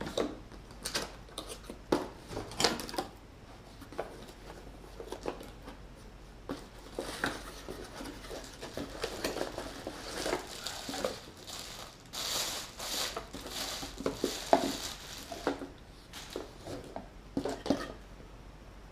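Packaging being handled while a boxed angle grinder is unpacked: scattered clicks and knocks, with a stretch of rustling and crinkling in the middle.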